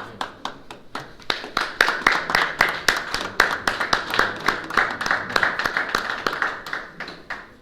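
A small group of people applauding, with separate claps audible, dying away just before the end.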